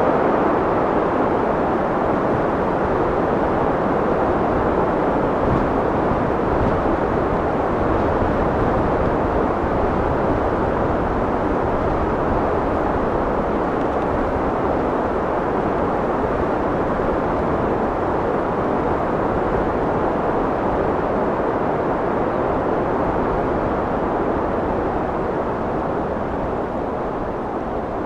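Wind blowing steadily in a low, full rush with no gusts or breaks, easing off slightly near the end.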